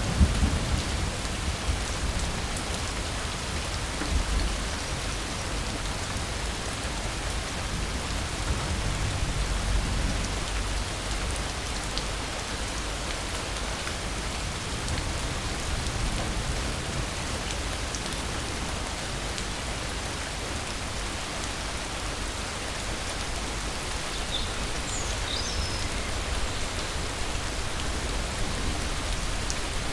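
Steady rain falling, with the last of a low thunder rumble dying away in the first second. A few faint high chirps come near the end.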